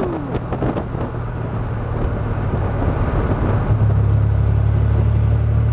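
Chevrolet Corvair Spyder driving along, its turbocharged air-cooled flat-six giving a steady low hum under road and wind noise. The engine note grows louder and more even about two-thirds of the way in.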